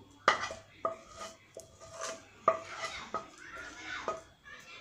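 Spatula knocking and scraping against the pan and a plate as thick, sticky carrot halwa is scooped out: a run of irregular clinks, several with a short ring, and scraping in between.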